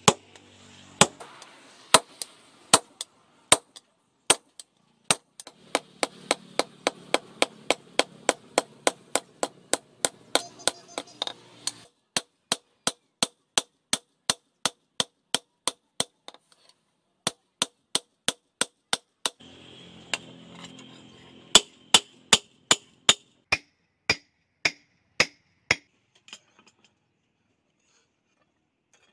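Hand hammer striking a red-hot spring-steel cleaver blade on a steel post anvil while forging it to shape: sharp, ringing metal blows, about three a second, with a brief pause midway, stopping a few seconds before the end.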